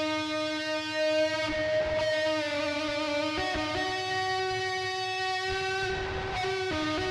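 Instrumental music: a slow melody of long held notes that change pitch every second or two, over a low rumble.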